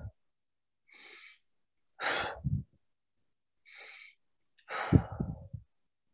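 A woman taking two slow, deep breaths. Each is a soft hissing breath in followed about a second later by a louder sighing breath out.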